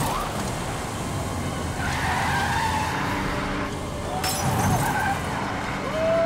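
Car chase: engines running hard with tires squealing in wavering screeches, and a sudden bang about four seconds in.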